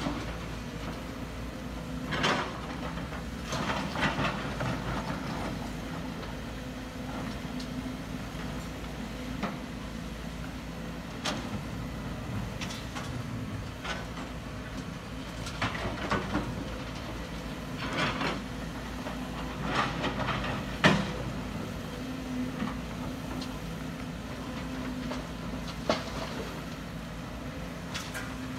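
Diesel engines of two Sumitomo SH210 hydraulic excavators running steadily as they dig, with irregular clanks, scrapes and rattles every few seconds as the buckets work and tip laterite into steel dump-truck beds. The sharpest knock comes about two-thirds of the way through.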